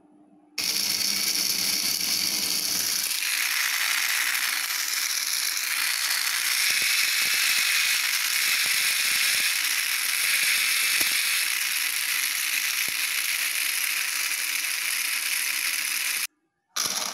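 Small DC motor driving a homemade gearbox built from an old fan's gears, running on 7.4 volts with a steady whir and gear rattle. Its sound changes about three seconds in, with the low hum dropping away and a higher whine coming up. It breaks off briefly near the end.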